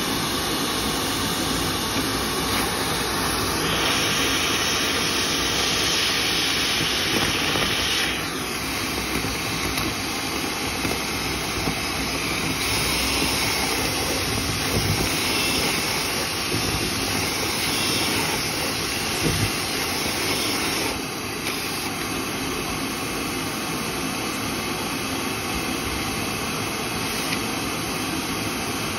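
Dryer vent cleaning equipment running: a steady rush of air and motor noise. The hiss turns brighter for a few seconds near the start, and the level drops slightly about two-thirds of the way through.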